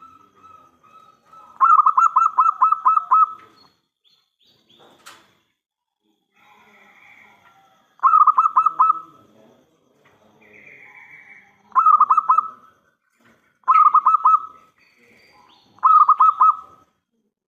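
Zebra dove (local perkutut) cooing in five bouts of rapid, rhythmic staccato coos. The first bout is the longest, about two seconds. A single sharp click comes between the first two bouts.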